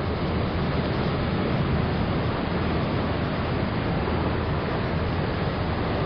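Ocean surf breaking and churning over rocks: a steady, continuous wash of water noise with no single crash standing out.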